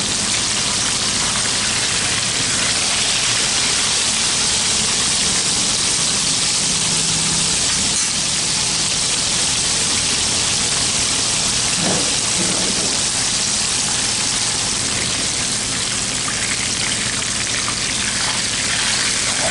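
Whole tilapia deep-frying in hot oil in a pan: a steady, dense sizzle of bubbling oil. A brief knock comes about twelve seconds in and another near the end.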